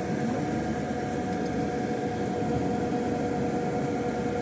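Steady mechanical hum carrying a constant drone with two fixed tones, unchanging throughout.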